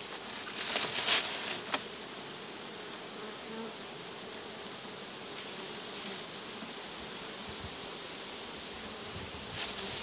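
Many honey bees buzzing around an opened hive, a steady hum. A few brief knocks and rustles in the first two seconds.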